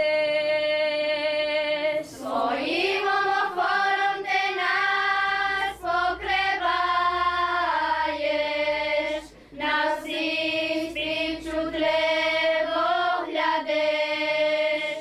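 Girls' church choir singing a Ukrainian hymn to the Mother of God, in long held phrases with short breaths between them.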